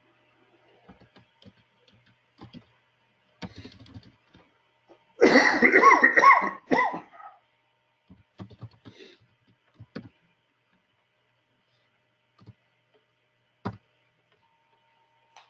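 A person coughing hard for about two seconds, about five seconds in, with scattered keyboard typing clicks before and after.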